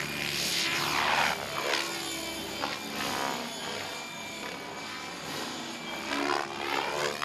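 Radio-controlled model helicopter flying aerobatic freestyle manoeuvres, its rotor and motor noise sweeping up and down in pitch as it changes direction.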